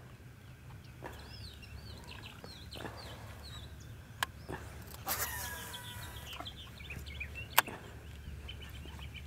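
Birds chirping and calling in short repeated notes over a steady low hum. Two sharp clicks stand out, about four and seven and a half seconds in, and a brief noisy burst with a falling tone comes about halfway through.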